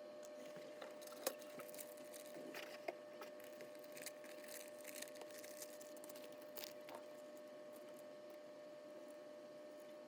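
Light handling noises on a workbench: a scatter of small clicks and brief rustles through the first two-thirds, over a faint steady hum.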